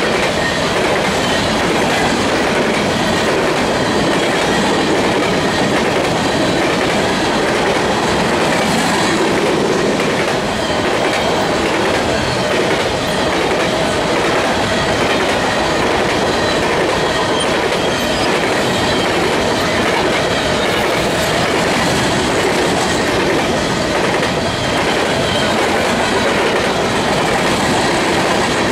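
Covered hopper cars of a freight grain train rolling past at close range: steel wheels running on the rails, a loud, steady rumble and clatter that does not let up.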